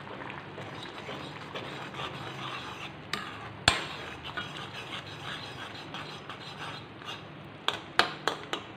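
A steel spoon stirring and scraping a simmering mango and jaggery mixture in a metal pan. Sharp clinks of the spoon against the pan sound once loudly a few seconds in and several times in quick succession near the end.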